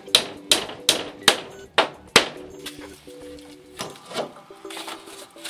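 A quick, even run of hammer blows that stops about two seconds in, followed by background music with a few faint knocks.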